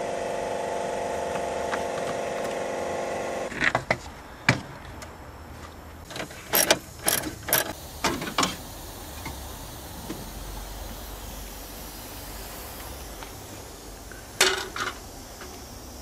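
A steady hum of several tones cuts off about three and a half seconds in. A run of sharp plastic knocks and clatters follows as the air intake hose and plastic air filter housing are pulled off the engine and handled, with one more clatter near the end.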